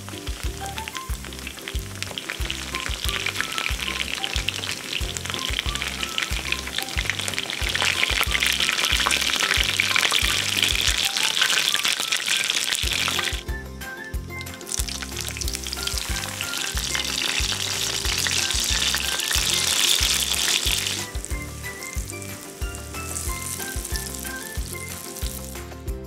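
Chicken pieces coated in potato starch shallow-frying in oil in a cast-iron skillet, with a dense, steady sizzle. After a brief break about halfway through, eggplant sticks fry in the leftover oil with the same sizzle, which stops a few seconds before the end. Background music with a steady beat plays throughout.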